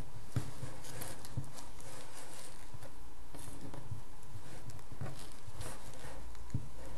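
Light taps and soft rustles of hands handling and folding felt pieces on a tabletop, scattered and irregular, over a steady background hum.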